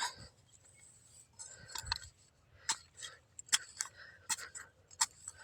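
Irregular short, sharp clicks and knocks, about one a second, with a dull thump about two seconds in.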